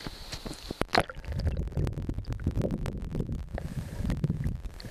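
A splash about a second in, then muffled gurgling and rumbling of river water with many small clicks, heard through a camera dipped under the surface of the stream.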